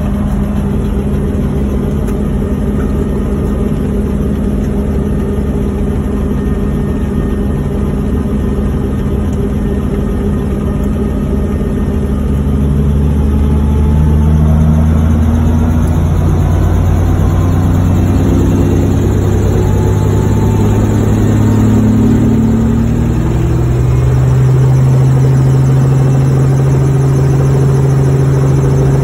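Helicopter engine and rotor running on the ground, heard from inside the cabin. It holds a steady pitch at first, then grows louder and shifts in pitch about halfway through, gliding before it settles at a new steady pitch near the end.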